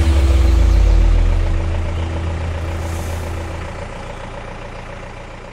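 Deep, pulsing engine rumble like a heavy truck idling, starting loud and fading away steadily over several seconds, with a steady low tone under it that stops about two-thirds of the way through.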